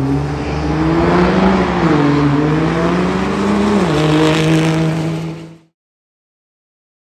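Second-generation Dodge Ram's Cummins diesel accelerating hard on a drag-strip pass. The engine pitch climbs, dips about two seconds in, climbs again and drops sharply about four seconds in at a gear change, then the sound cuts off abruptly near the end.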